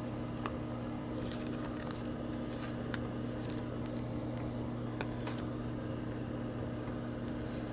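Steady low electrical hum with faint clicks and rustles of a trading card being handled and slid into a clear plastic sleeve.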